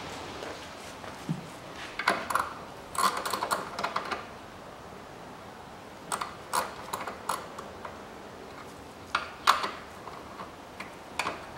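Irregular light clicks and taps of hands and a tool working on a car's plastic power steering fluid reservoir and its mounting, in small clusters a few seconds apart.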